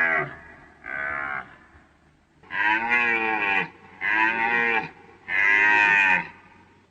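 Deer calling: a series of short, loud, pitched bellowing calls, each rising and falling in pitch, about one every second and a half, four in a row after the tail of an earlier one.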